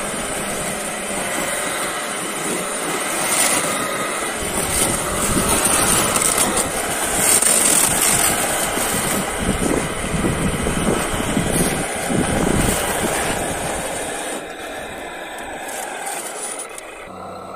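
A 1/8-scale RC truck's drivetrain running as its plow blade pushes and scrapes through snow: a steady mechanical whir mixed with scraping and crunching, louder in the middle and easing off near the end.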